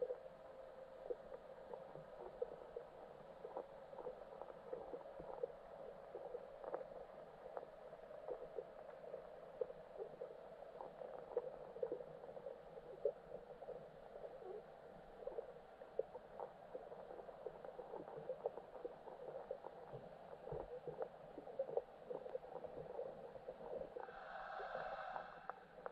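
Muffled underwater lake ambience: a steady low hum with many small irregular clicks and ticks throughout. Near the end a brief buzzing tone with several overtones rises out of it for about a second and a half.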